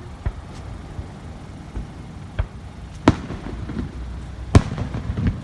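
Fireworks shells exploding in the sky: five sharp bangs, the loudest about three and four and a half seconds in.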